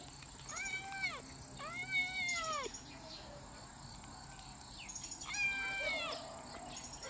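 Kitten meowing three times, each a high call that rises and falls in pitch, the second the longest.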